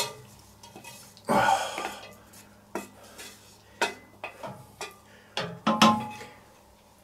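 Browned diced meat and its juice sliding from a stainless-steel pan into a steel cooking kettle, a short rush about a second in. Then several clinks and knocks as a wooden spatula scrapes the pan out against the kettle rim.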